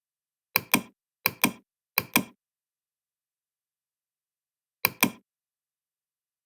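Sharp mechanical double clicks, each a pair of knocks about a fifth of a second apart. Three pairs come in quick succession about 0.7 s apart, then a fourth follows about three seconds later, with dead silence between.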